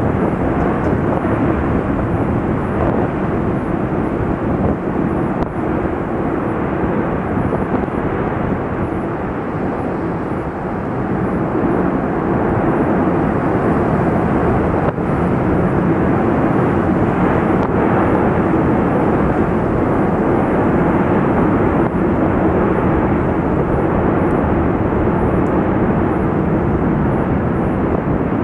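Continuous noise of the La Palma volcano's vents fountaining lava, a steady rumbling roar that eases slightly about ten seconds in and then grows louder again.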